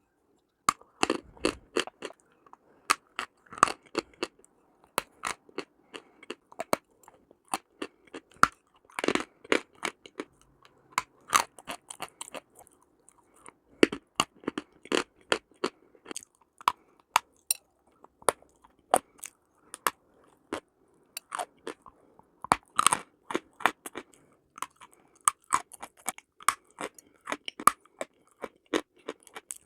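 Close-miked crunching and chewing of a hard, brittle chalk-like mineral, with many sharp crackling crunches coming in clusters between short pauses.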